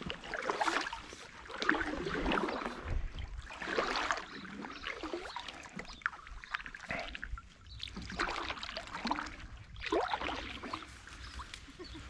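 Inflatable kayak being paddled, the paddle blades dipping and splashing in the water in repeated strokes every second or two.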